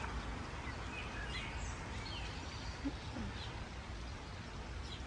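Outdoor garden ambience: a steady background hiss and rumble with a few short, high bird chirps.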